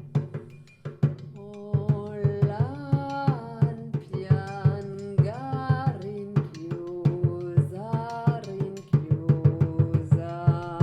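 Live music: a drum struck in quick, even strokes, under a woman's voice singing held notes that slide upward between phrases.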